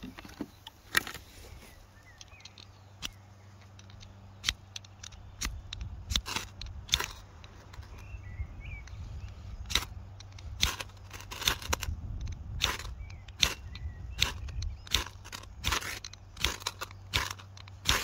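Small wood-and-charcoal fire catching in a portable camp stove, crackling with sharp pops that come more often after about five seconds, over a low rush that builds as it takes hold.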